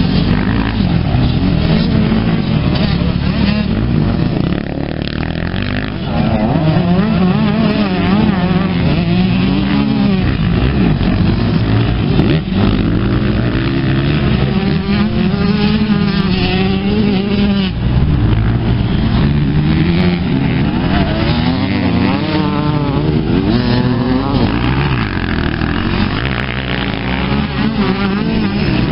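Several motocross bikes racing on a dirt track, their engines revving up and down in overlapping rising and falling notes as they accelerate, shift and brake through the turns. The sound dips briefly about five seconds in.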